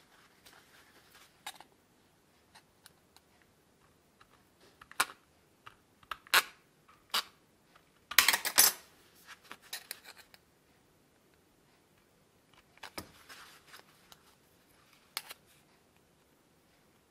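Hand aviation snips cutting thin sheet steel, about 0.8 mm thick: sharp snips and crunches at uneven intervals, the loudest cluster about eight seconds in.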